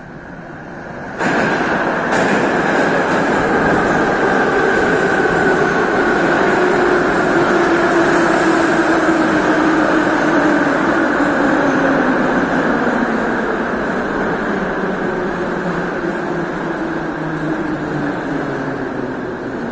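Metro train arriving at the platform, its roar starting suddenly about a second in. Its motor whine falls steadily in pitch as it brakes and slows.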